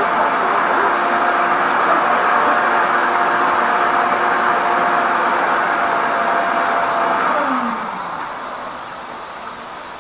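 Electric suction (wet-and-dry vacuum) motor drawing on the drain, a loud steady airy noise with a steady whine, switched off about seven and a half seconds in and spinning down with a falling whine.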